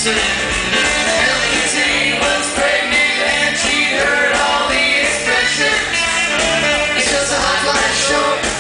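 Live rock band playing with electric guitar, lead vocals and women's backing vocals singing together, with drums and cymbals keeping a steady beat.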